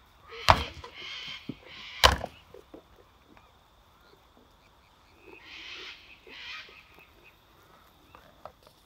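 Two mini goat bucks clashing heads in a dominance fight: two sharp cracks of horn and skull striking, about a second and a half apart, with a few fainter knocks near the end.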